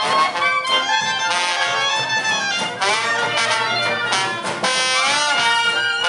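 Live jazz band playing, led by trumpet and trombone, with horn notes bending up and down.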